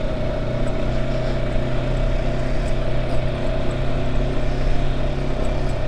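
Kawasaki ZX-10R inline-four engine on its stock exhaust, running at a steady, unchanging pitch without revving.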